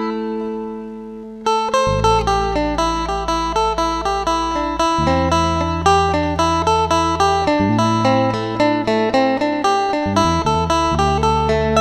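Phin, the northeastern Thai plucked lute, playing a fast picked melody over low held drone notes. It opens on one ringing note that fades, and the quick picking starts about a second and a half in.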